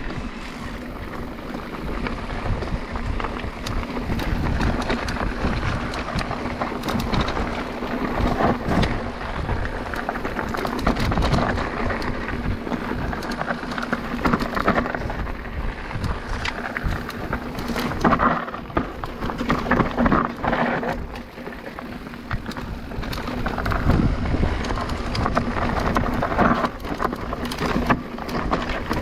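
Mountain bike riding over a rough trail: tyres crunching over stones and gravel with a steady run of knocks and rattles from the bike, and rumble on the microphone.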